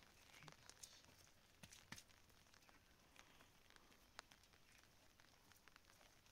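Near silence, with faint scattered clicks and light taps.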